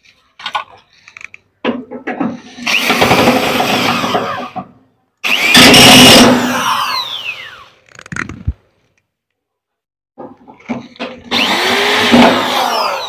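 Handheld electric drill-driver running on the sheet-metal panel screws of an air-conditioner outdoor unit, in three bursts of a few seconds each. The motor's pitch winds down as each burst ends, with short clicks and knocks between the runs.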